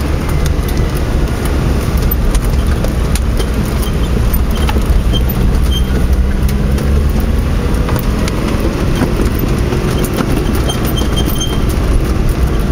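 Vauxhall Frontera Sport driving along a dirt forest track, heard from inside the cab: a steady low engine and tyre rumble with scattered light clicks and rattles.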